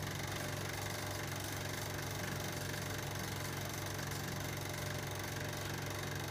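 Cine film projector running steadily: a low, even mechanical hum with a fine running rattle.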